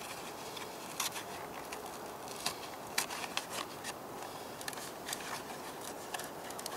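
Small cardboard box of a new oil filter being opened by hand: irregular sharp clicks and rustles of the flaps and packaging.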